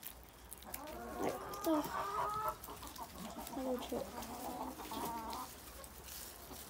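Hens clucking, a run of short repeated calls that come and go through most of the stretch.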